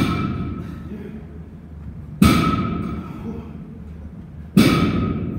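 Three sharp impacts about two and a quarter seconds apart, each ringing out and fading over about a second.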